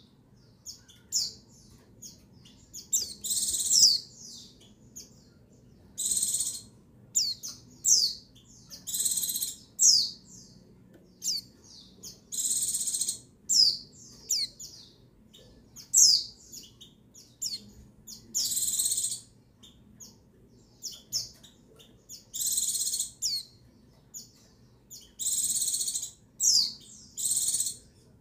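White-eye (pleci) calling, the female call used to stir males into song: short, high, buzzy bursts every few seconds, mixed with quick, sharp sliding notes.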